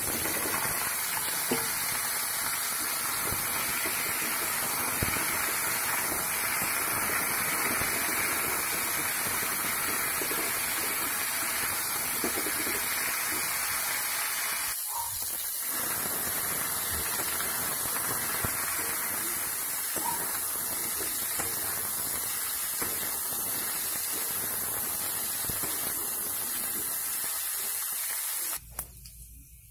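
Diced green papaya and potato sizzling in hot oil in an iron kadai, a steady loud hiss, with a few light clicks from the metal spatula stirring them. The sizzle cuts off briefly about halfway and stops suddenly near the end.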